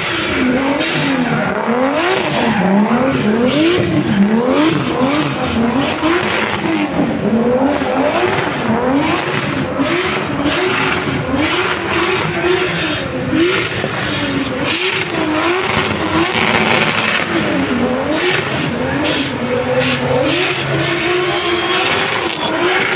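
BMW E36 drift car's engine revving up and down over and over, roughly once a second, as it slides sideways on a soaked track, over a steady hiss of spinning tyres and spray.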